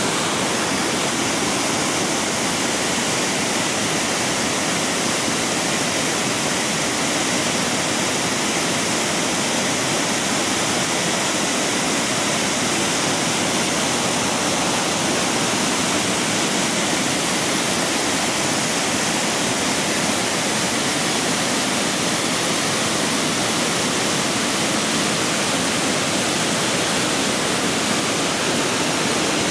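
A 120-foot waterfall pouring, a steady, even rush of falling water with no change throughout.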